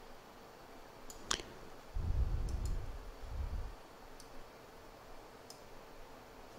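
Several soft computer mouse clicks, one louder than the rest about a second in. A low rumble runs from about two to nearly four seconds in.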